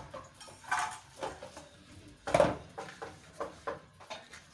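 A cooking spoon knocking and scraping against a stainless steel pot while food is stirred: a string of separate clinks and knocks, the loudest about halfway through.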